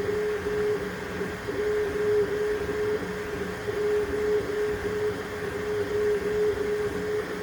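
3D printer running mid-print, printing a bottle opener: its stepper motors whine at one steady pitch broken into short runs that shift slightly as the print head changes moves.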